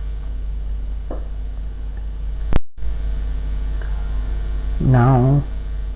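Steady electrical mains hum on the recording, with a sharp click and a brief dropout about two and a half seconds in.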